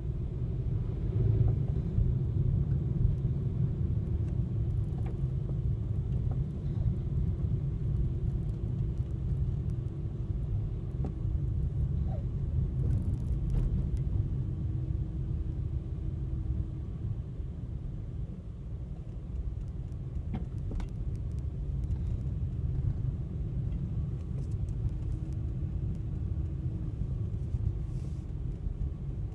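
Steady low road and engine rumble heard inside a car's cabin as it drives slowly in queued traffic, with a faint steady hum above it.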